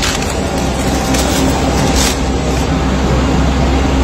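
A steady low rumble, with a few short knocks.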